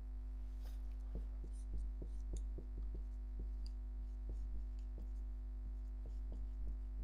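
Steady low electrical hum with a faint higher tone, under light irregular taps and clicks from writing on a board, about two or three a second.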